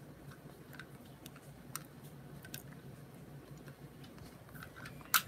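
Faint, scattered clicks and light taps of a die-cast toy truck cab being turned over and handled, with a sharper click near the end.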